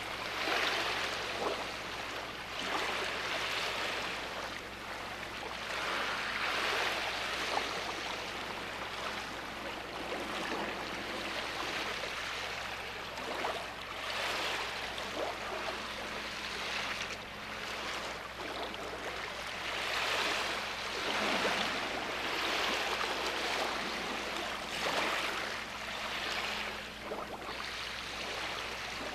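Small sea waves washing onto a beach, a soft hiss of surf that swells and ebbs every few seconds.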